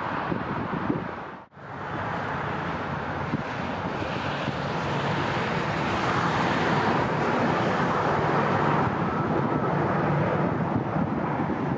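Jet airliner engines rumbling as a plane passes, with wind on the microphone. The sound drops out briefly about a second and a half in, then the engine noise returns and builds.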